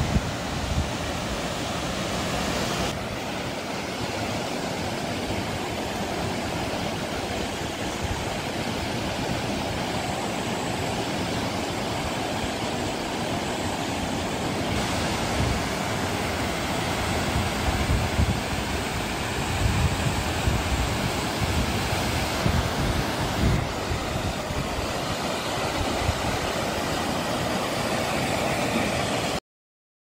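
Mountain stream rushing over boulders and small cascades, a steady sound of running water, with gusts of wind buffeting the microphone at times. It cuts off abruptly just before the end.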